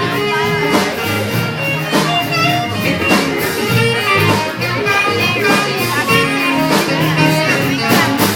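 Live band playing a jazz-blues tune with a steady beat, held instrumental notes over drums.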